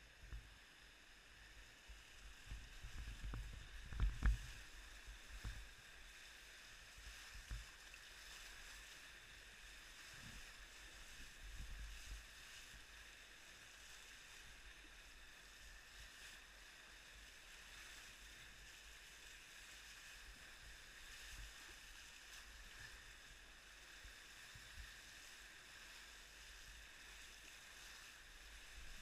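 Whitewater rushing around a kayak surfing a river wave, heard as a faint, steady hiss through the camera. There are low thumps of water and paddle against the boat and camera, loudest about four seconds in and again around eight and twelve seconds.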